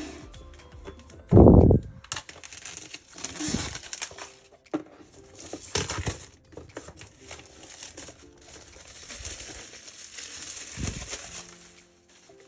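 Plastic packaging crinkling and rustling as it is handled, in several bursts, with one dull thump about a second and a half in.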